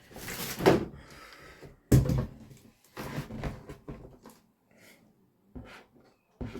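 Handling noises from a large cardboard toy box: a scraping rustle during the first second, then a sharp knock about two seconds in, followed by shorter rustles and two small knocks near the end.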